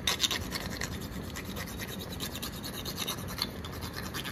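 Whole nutmeg being grated on a small hand rasp: a quick run of short scraping strokes, strongest in the first second.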